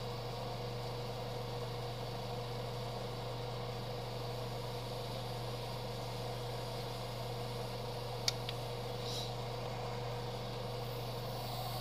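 Steady low machine hum, with one sharp click about eight seconds in.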